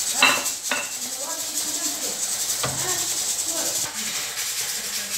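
Background music with a steady shaker rhythm and a voice in it, over a few light knocks, the first near the start and another a little past halfway.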